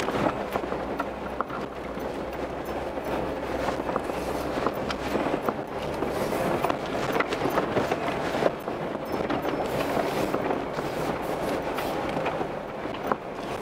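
Off-road vehicle driving over a rough, rocky dirt mountain road: a steady rumble of tyres on rock and gravel, with frequent clicks and rattles, and a low engine hum underneath in the first few seconds.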